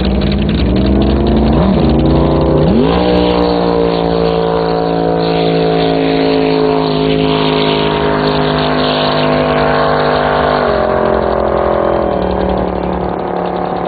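Twin-turbo big-block Chevy jet boat engine accelerating hard: its pitch climbs with two brief dips in the first three seconds, then holds steady and high at full throttle for about eight seconds before stepping down twice near the end.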